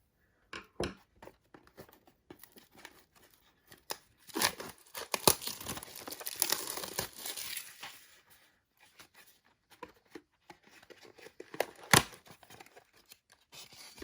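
A Donruss Clearly NFL trading card box being torn open, its wrapping tearing and crinkling in a busy stretch in the middle, with scattered handling clicks and one sharp click near the end.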